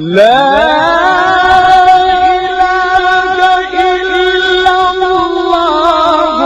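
A man's voice in Quran recitation (tajweed), sliding up from low into one long held note that wavers in ornamented turns near the end.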